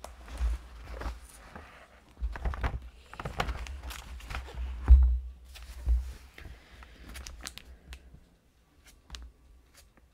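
Hands smoothing and pressing down the thin pages of an open Bible and shifting the book on a table, with paper rustling and dull thumps, the loudest about halfway through. Toward the end a few light clicks and scrapes as a metal palette knife starts spreading texture paste on the page.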